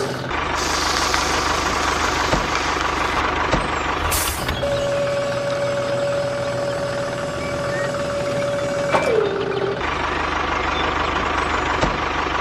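Dump truck engine running steadily while it tips its load. A steady high whine sets in about four and a half seconds in, then drops in pitch and stops about nine seconds in. A few short knocks sound through it.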